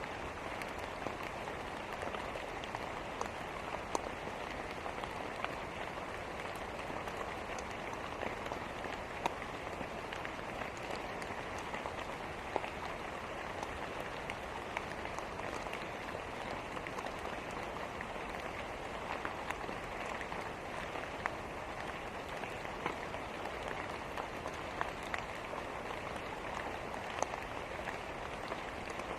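Steady rain with scattered sharp crackles and pops from a wood fire in a fireplace.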